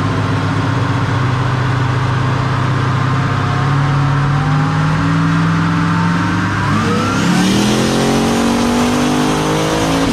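Twin-turbocharged 6.0-litre LS V8 (L76 truck engine) in a 1969 Camaro making a full-throttle pull on a chassis dyno. The engine note climbs steadily in pitch, then faster about seven seconds in, with a thin rising whistle above it from the turbos.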